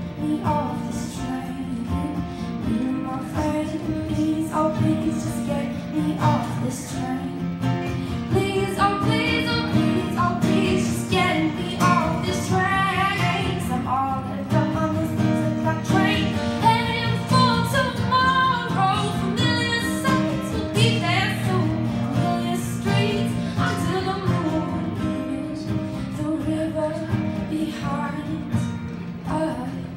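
A woman singing to her own acoustic guitar, the guitar chords carrying on steadily under the voice.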